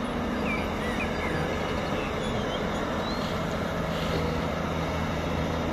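Large Volvo crawler excavator's diesel engine running steadily with a low hum as it digs sand and loads a dump truck.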